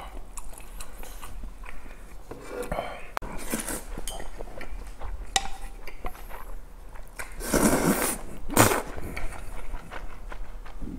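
Cold buckwheat noodles (naengmyeon) being slurped in a few noisy pulls, the loudest a little past the middle, with light clinks of chopsticks against a metal bowl.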